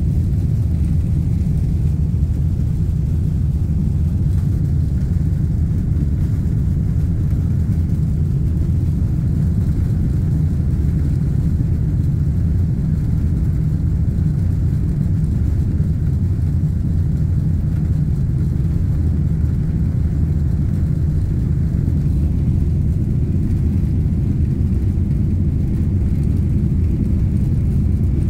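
Steady low rumble inside the cabin of a Boeing 777 airliner rolling on the ground: the jet engines and the wheels on the pavement, holding level with no spool-up.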